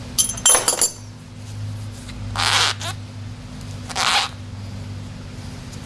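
Metal fuel-pump assembly parts being handled: a few quick metallic clinks, then two short rasping scrapes about a second and a half apart, over a steady low hum.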